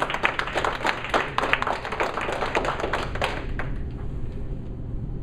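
A small audience of a handful of people applauding, dense hand claps that die away about three and a half seconds in.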